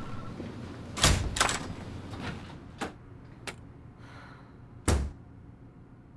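A door being handled and shut: a loud thump about a second in, a few lighter knocks and clicks, then a heavy thud about five seconds in.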